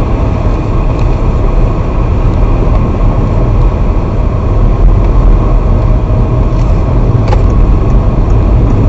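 Steady deep rumble of a car's engine and road noise heard inside its cabin, with a brief click about seven seconds in.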